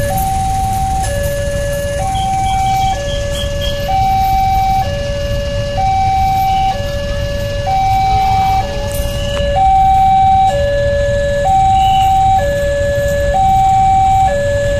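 Electronic (synthesised) alarm of an Indonesian railway level crossing sounding a two-tone hi-lo pattern, about a second on each tone, warning that a train is approaching. It plays over the low rumble of idling motorcycles and cars waiting at the closed barrier.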